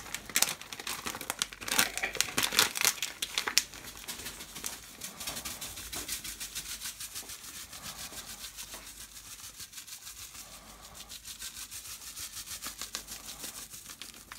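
Seasoning packet crinkling as it is opened and handled for the first few seconds, then shaken over a pot in a fast, even run of light crinkling taps as the dry seasoning pours out.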